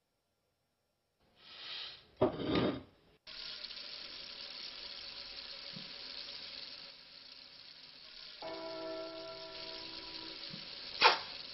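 Cartoon sound effects: a sudden heavy blow about two seconds in, then a steady hiss that runs on, with a sharp knock near the end.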